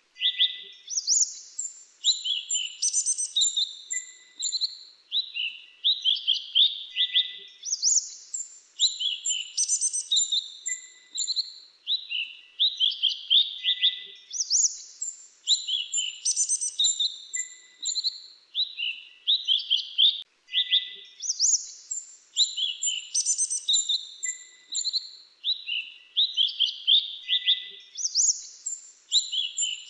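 Mantenan dagu kelabu singing: dense runs of quick, high sweeping notes with short gaps, the same song pattern repeating about every seven seconds.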